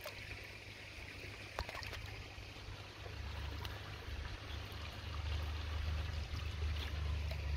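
Small water splashes and trickling as goldfish are let go from a hand into a garden pond, with a few short sharp splashes. A low rumble underneath grows stronger about halfway through.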